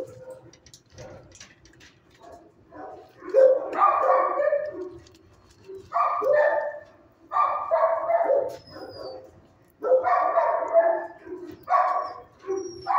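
Dogs barking in a shelter's kennels. After a quieter first few seconds there is a run of barking bouts, each about a second long, every second or two. The loudest is about four seconds in.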